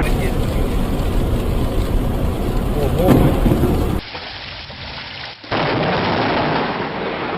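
Thunder rumbling heavily over rain. About four seconds in it cuts to steady hiss of rain, which swells suddenly louder about a second and a half later.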